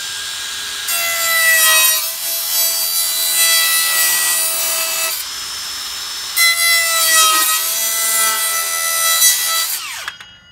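Handheld power jigsaw cutting a panel board. The motor runs free for about a second, cuts loudly and raspily for about four seconds, runs free again for about a second, cuts for another three seconds, then is switched off and winds down.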